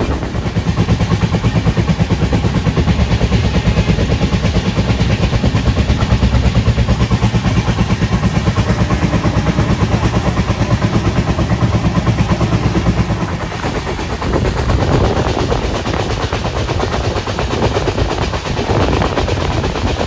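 An express train running behind twin EMD diesel locomotives. A fast, even low thumping carries for about thirteen seconds, then gives way to a rougher rushing noise of the moving train.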